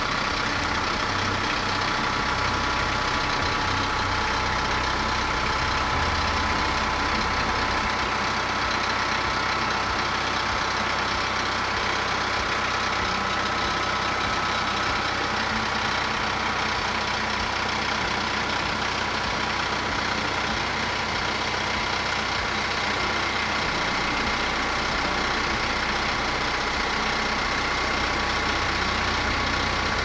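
An engine running steadily at an even speed, with a low pulsing note and a steady higher whine.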